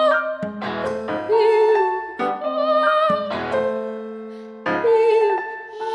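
A woman singing long held notes with a slight waver, over piano chords struck about once a second, in contemporary classical concert music.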